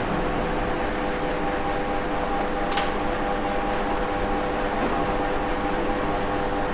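Steady background hiss with a faint constant hum, and one brief click a little under three seconds in.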